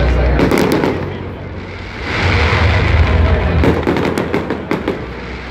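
Aerial fireworks bursting overhead: two deep booms, one right at the start and another about two seconds in, each followed by a run of sharp crackles from the stars.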